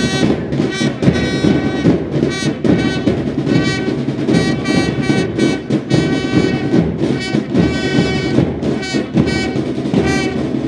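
Military brass band playing a march, loud, in quick repeated notes over a steady beat.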